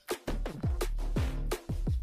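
Electronic background music with a kick-drum beat, sharp hi-hat or snare hits and a steady bass underneath.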